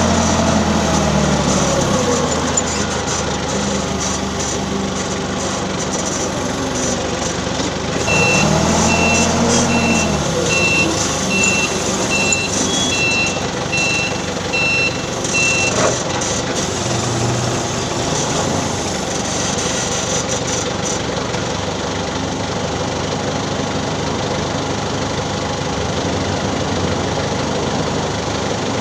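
Forklift running, its engine rising and then falling in pitch about eight seconds in, as a reversing alarm starts beeping at about two beeps a second. The beeping stops about eight seconds later while the engine keeps running.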